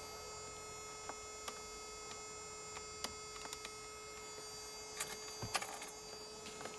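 Steady electrical hum with scattered light clicks and knocks from a plastic truck door trim panel being handled, a cluster of them about five seconds in.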